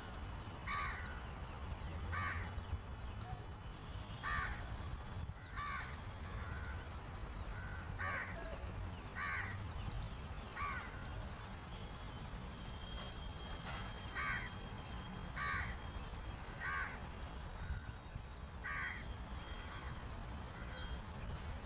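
A crow cawing repeatedly, single harsh caws about every second or so with a pause of a few seconds midway: alarm calling that gives away a shikra (a small hawk) close by.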